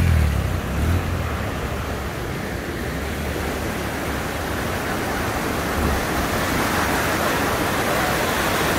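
Fast-flowing muddy floodwater rushing, a steady even noise that grows slightly louder near the end.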